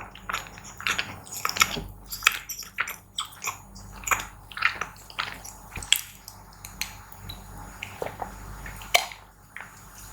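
Close-miked chewing and wet mouth sounds of eating, with irregular crackly clicks several times a second.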